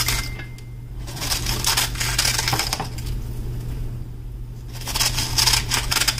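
Knife shredding a cabbage head held in the hand, a quick run of crisp crunchy cuts. There are two runs of cutting with a short pause in the middle.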